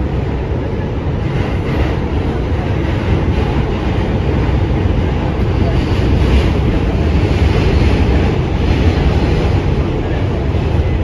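New York City Subway A train car running along the track, heard from inside the car: a loud, steady, deep rumble of wheels and car body, growing a little louder around the middle.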